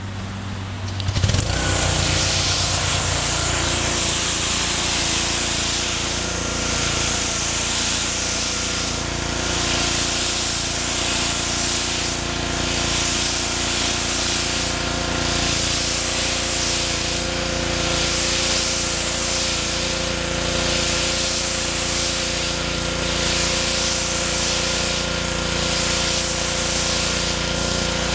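Pressure washer spraying water onto the surface of an oriental rug: a steady hiss of spray that starts about a second in, with the washer's motor humming steadily beneath it and the level swelling and easing slightly as the spray moves.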